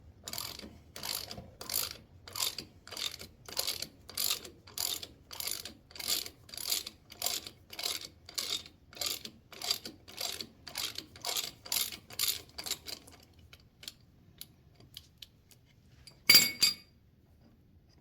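Hand ratchet clicking in steady strokes, about two a second, as the loosened compensator bolt is backed out; the clicking stops about 13 seconds in. A single short, loud metallic clatter follows about 16 seconds in.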